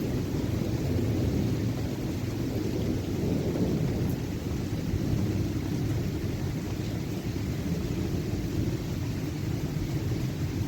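Thunder from a nearby lightning storm rumbling low and steady, with no sharp cracks.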